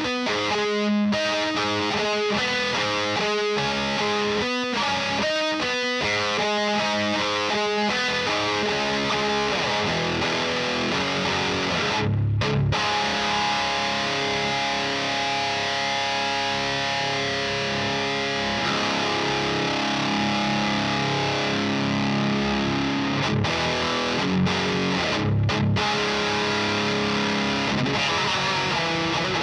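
Heavily distorted electric guitar played through a Diezel VH4 preamp pedal, boosted by an Abominable Electronics Hellmouth, into the EL34 tube power section of a Rivera Knucklehead Reverb amp. It opens with short, chopped notes in a tight rhythm for several seconds, then moves to held, ringing chords, broken by brief stops twice.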